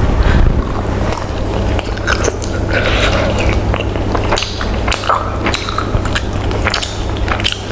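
Close-miked chewing and biting of food, a steady run of wet smacks and short crunchy clicks.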